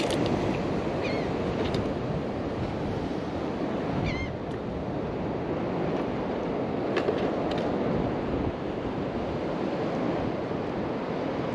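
Ocean surf breaking steadily on a beach, with wind on the microphone. A few short, high chirps come through about a second in and again around four seconds.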